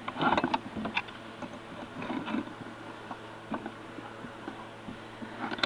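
Handling noise from a sewer inspection camera being carried: scattered light knocks, clicks and rustles over a steady low hum.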